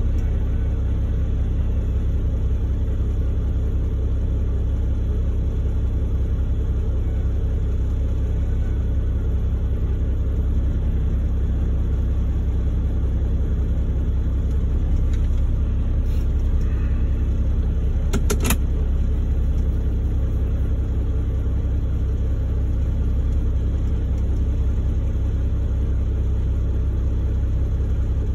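Diesel engine running at a steady idle, heard as a low rumble from inside a log truck's cab during loading. A couple of sharp knocks come close together about 18 seconds in.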